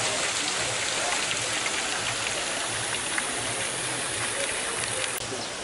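Water falling down a water-wall fountain: a steady, even hiss of splashing water.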